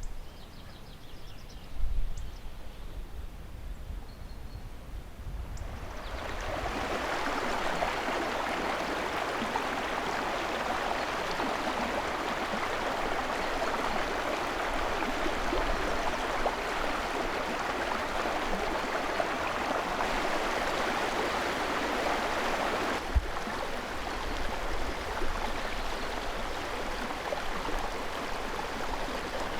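A stream or river flowing, a steady rushing of water that comes in about six seconds in and carries on, a touch quieter after an abrupt change past the middle. Before it there is a quieter forest hush with a few faint high chirps and one brief low thump about two seconds in.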